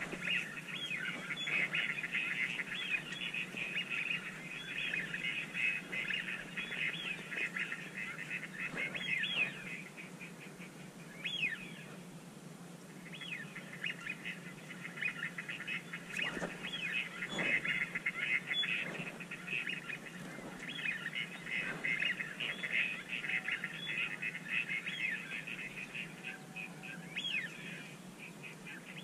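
A chorus of many small birds chirping and twittering in a dense, continuous chatter that thins out for a couple of seconds near the middle.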